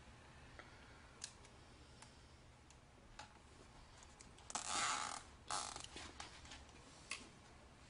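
Plastic wire ties being pulled through their ratchet heads on a kneepad's insert and frame: faint scattered clicks, with a short rasping zip about halfway through and a few sharper clicks after it.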